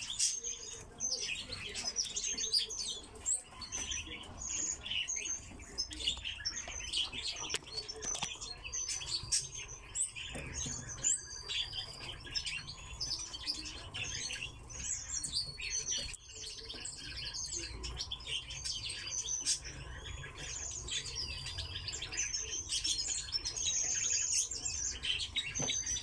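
Pine grosbeaks chirping and calling, many short high calls overlapping, with a few quick trills.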